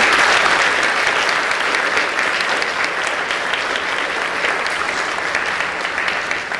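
Audience applauding, loudest at the start and slowly dying away.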